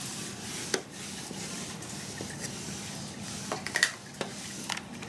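Hand iron pressing and sliding over cotton fabric on a wool pressing mat: soft rubbing with a few light clicks and knocks.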